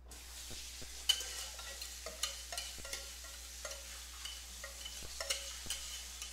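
Spatula scraping the last of the custard out of a stainless steel double-boiler pan, a run of wet scrapes with light clicks against the metal.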